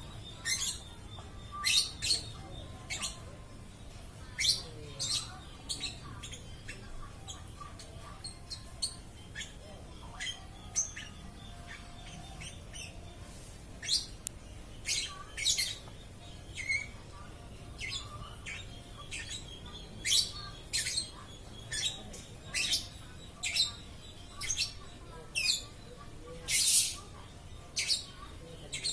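Lovebird chirping on and on: short, sharp, high-pitched calls coming about once or twice a second, often in quick pairs, with one longer call near the end.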